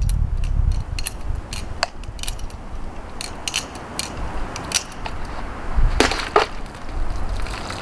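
Kershaw Moonsault butterfly knife being flipped: an irregular run of sharp clicks from the handles and blade knocking together, two louder ones about six seconds in, with wind rumbling on the microphone.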